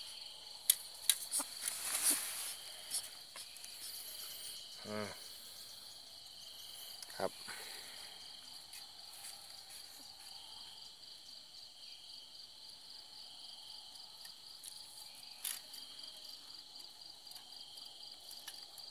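Steady chorus of night insects chirring in a continuous high-pitched trill. Over it come a few sharp clicks and knocks in the first two seconds or so, a short low buzzy sound about five seconds in, and single sharp clicks near seven and fifteen seconds.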